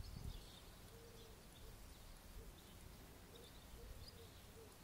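Near silence: faint outdoor ambience with a low rumble and a scatter of faint short chirps.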